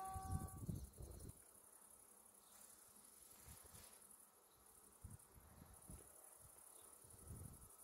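Faint, steady high-pitched chirring of insects in the grass, with occasional low wind buffets on the microphone. In the first second a low rumble and a few held tones die away.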